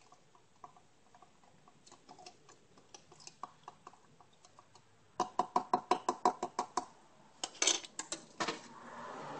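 A plastic knife stirring a solution in a glass jar and ticking against the glass: faint light taps at first, then, about five seconds in, a quick run of louder taps at about eight a second, and a few more clicks after it. A soft rustle comes in near the end.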